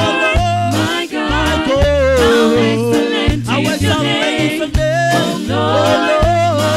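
Live gospel praise band playing a reggae song: a lead singer with backing singers over keyboard and electric guitar, with a bass line of short repeated low notes.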